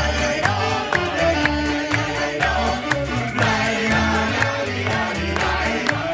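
Lively live band music with a steady bouncing bass, about two beats a second.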